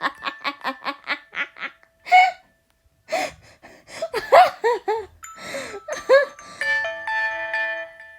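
Nokia 2.4 ringtone playing, mixed with a person laughing. It opens with a fast even run of repeated pitched notes and ends with several steady tones held together.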